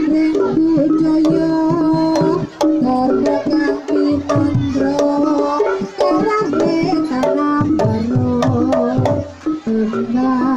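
Javanese jaranan gamelan music: kendang hand drums beat sharp strokes and low strokes that bend down in pitch, under a loud melody of held, wavering notes.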